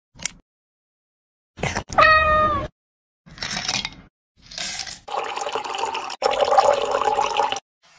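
A domestic cat meows once, a short call about two seconds in, among several abruptly cut snippets of other noise.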